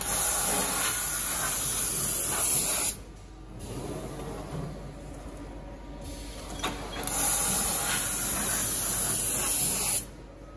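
CNC V-groover machine cutting V-grooves into steel sheet: a steady high hiss for about three seconds, then after a quieter stretch of machine noise with a few clicks, a second hiss of about three seconds.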